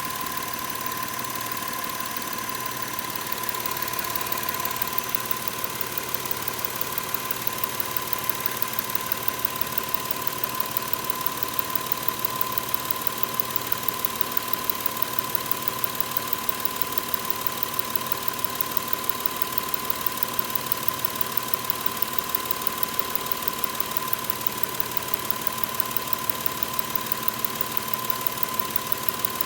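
Subaru EZ30 3.0-litre flat-six engine idling steadily, with a steady high-pitched whine and a regular light ticking pulse.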